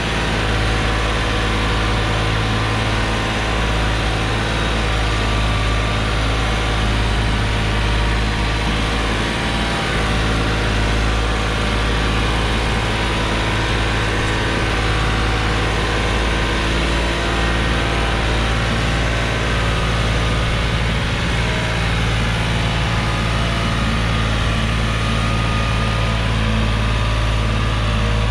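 New Holland 3630 tractor's three-cylinder diesel engine running steadily under load as it pulls a loaded trolley through sand.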